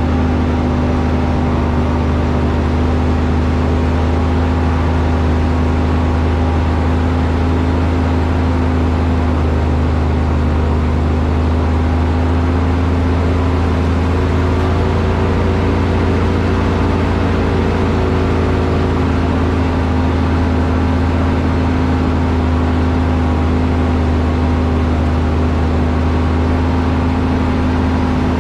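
Heavy vehicle engine running at a steady speed: a constant low drone with a hum above it, shifting slightly in pitch around the middle.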